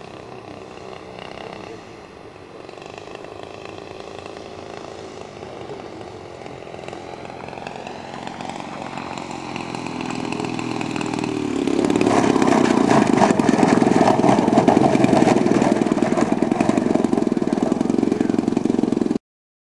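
The 50cc two-stroke gas engine and propeller of a large radio-controlled CAP 232 aerobatic plane, heard far off at first with a wavering pitch and growing steadily louder as the plane comes in. From about twelve seconds in it is loud and close, then it cuts off suddenly near the end.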